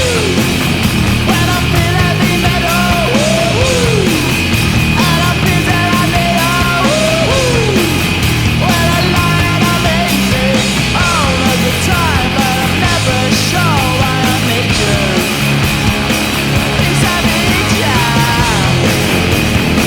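Loud hard-rock goal song with vocals and distorted guitars, played after a hockey goal horn, with a steady high tone held under the music.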